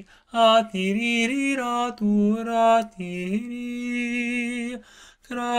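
A man chanting Light Language, invented non-lexical syllables, in a sing-song intonation. The voice moves through short phrases, and about three and a half seconds in it holds one steady note for over a second.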